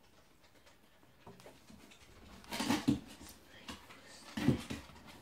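A sleeping puppy giving short, muffled woofs and whimpers in its sleep while dreaming, twice: once about halfway through and again near the end.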